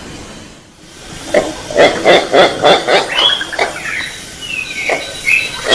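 White-breasted waterhen (bekuak) lure call: after a brief lull, a rapid run of repeated croaking notes starts about a second and a half in, at about four a second. A few higher gliding notes sound over them.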